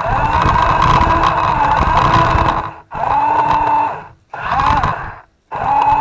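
RC toy truck's motor and gears whining in four bursts of throttle, a long one of nearly three seconds then three shorter ones, each rising in pitch as it starts and dropping as it stops, over the rumble of the wheels on the floor.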